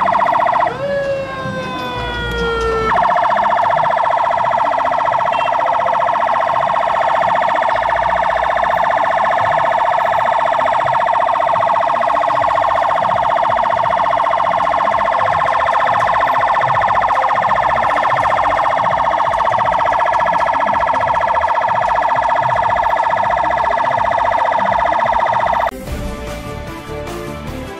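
Electronic siren on an escort vehicle with flashing lights: rising wails in the first few seconds, then a steady, rapidly pulsing high tone held for about twenty seconds. It cuts off near the end, replaced by music.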